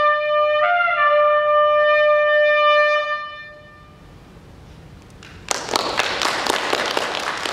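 Solo trumpet holding a long closing note, slurring down slightly about half a second in, then ending about three seconds in. After a short lull, audience applause starts about two seconds later and continues.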